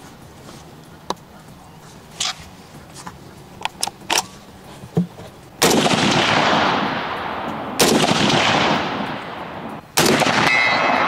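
Three rifle shots from a Browning BAR MK3 DBM semi-automatic rifle in .308, fired about two seconds apart, each echoing away slowly. Light clicks of handling come before the first shot, and a short ringing note follows the last.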